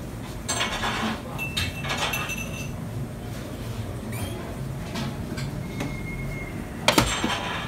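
Bakery work noise: a steady low hum with scattered knocks, clatter and brief squeaks, and a sharp knock about seven seconds in.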